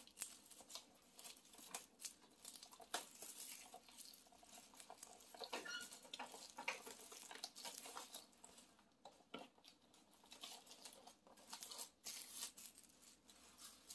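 Plastic film wrap being peeled and crumpled off a hydroponic seed kit, giving faint, irregular crinkling and crackling.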